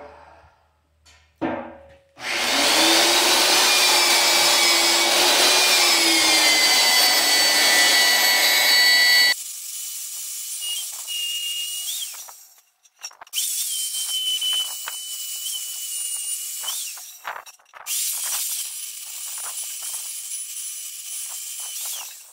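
Magnetic drill press running, its bit cutting holes through a steel table top. After a click, a loud spell of drilling with a high whine lasts about seven seconds; then the sound drops suddenly and it runs quieter with a steady high whine, broken by a few short stops.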